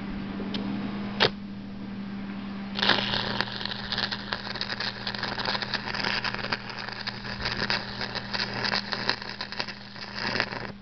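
Stick-welding arc from a 3/32-inch 7018 low-hydrogen electrode: a sharp tap about a second in, then the arc catches about three seconds in and crackles steadily until it is broken off shortly before the end. A steady low hum runs underneath.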